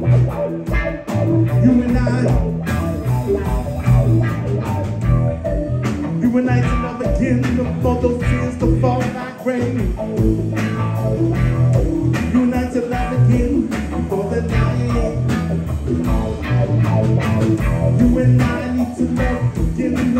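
Live band playing a song: electric guitar, electric bass guitar and drum kit.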